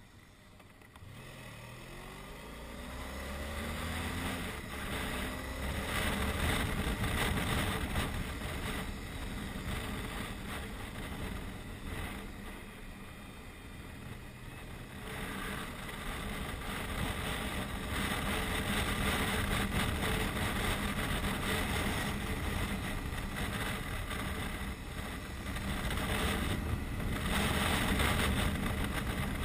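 Touring motorcycle engine pulling away, its pitch rising over the first few seconds, then running steadily under a heavy rush of wind on a helmet-mounted microphone.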